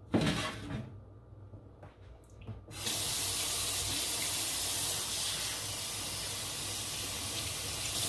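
A knock and clatter at the start, then a few small clicks; about three seconds in a kitchen tap is turned on and water runs steadily from it, drawing water for cooking.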